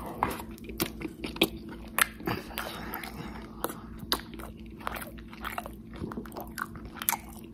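A person chewing a mouthful of burger with intense open-mouthed lip smacking: wet, irregular smacks a few times a second.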